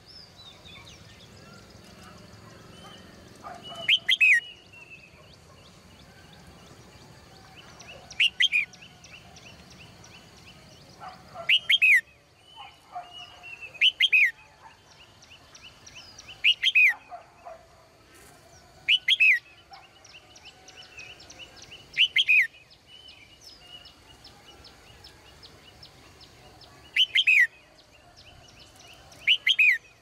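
Red-whiskered bulbul in a cage calling over and over. Short, loud bursts come every two to three seconds, each a quick couple of sweeping, chirpy notes.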